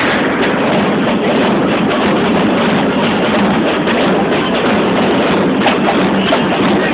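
Large marching bass drums beating amid a cheering crowd, forming a loud, unbroken din.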